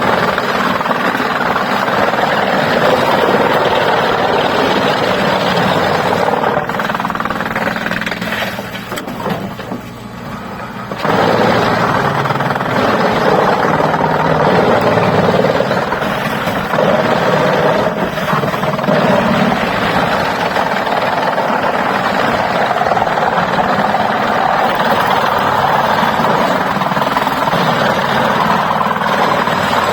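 Heavy machinery running loudly and steadily, easing off for a few seconds about a third of the way in, then picking up again.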